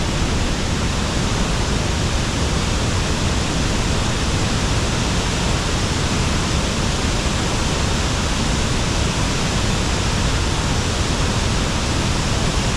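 Ban Gioc Waterfalls in full rainy-season flow: a steady, even rush of falling water with no change in level.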